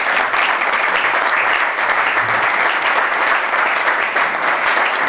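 Audience applauding: dense, steady hand-clapping from many people.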